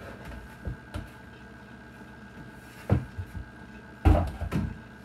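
Knocks and clunks as a large resin-printer build plate is handled, the loudest about three seconds in and a cluster about four seconds in.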